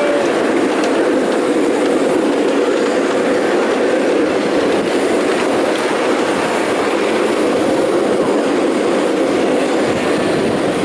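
Wheels of a ride-on miniature railway train rolling steadily over the track: a continuous, even rolling rattle that holds at the same level throughout.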